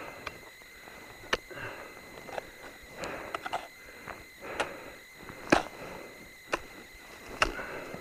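Ice axe picks striking into snow-covered ice: sharp knocks about once a second, the loudest about five and a half seconds in.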